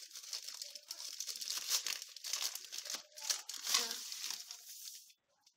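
Plastic courier mailer bag crinkling and tearing as it is ripped open and a cardboard box is pulled out of it. The rustling stops about five seconds in.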